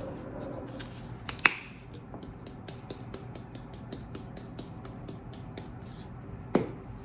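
Light clicking and tapping from shaking seasoning onto chicken, with two sharp knocks, about a second and a half in and near the end, like containers set down on a counter.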